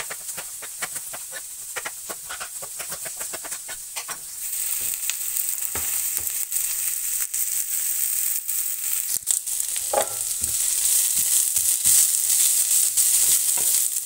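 Knife chopping walnuts on a plastic cutting board, a quick run of knocks for the first four seconds or so. Then sliced onion and chopped walnuts sizzling in hot oil in a frying pan, stirred with a spoon, the sizzle growing louder toward the end.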